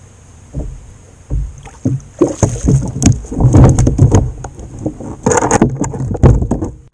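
Knocks and thumps on a kayak's hull, irregular and coming thick and fast from about a second in after a quiet start.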